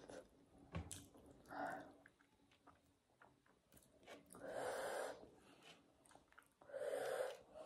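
Quiet mouth sounds of someone eating: chewing with small wet clicks, and two longer breathy exhalations, one about four and a half seconds in and one near the end.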